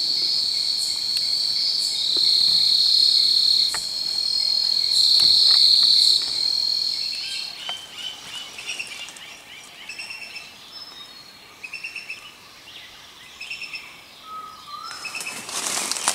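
Night insects calling in a steady high buzz that swells louder twice and cuts off about seven and a half seconds in. Then forest birds chirping in short repeated calls, with a rustle near the end.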